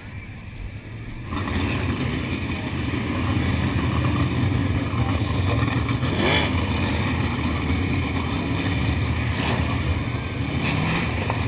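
Winged dirt-track sprint car engines running as the cars roll past close by. The noise jumps up about a second in, and about six seconds in one car's engine rises and then falls in pitch as it passes.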